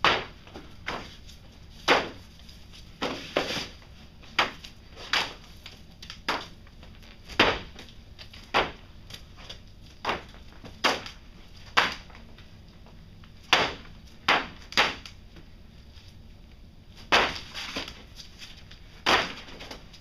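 A small charcoal-covered rabbit figure thrown again and again onto a sheet of paper, each landing a short sharp slap. The slaps come irregularly, about once a second, some in quick pairs.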